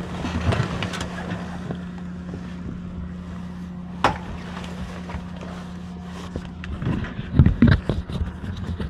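Semi truck's diesel engine idling with a steady low hum. There is a sharp click about four seconds in and a run of knocks and rustling near the end as someone moves around the cab.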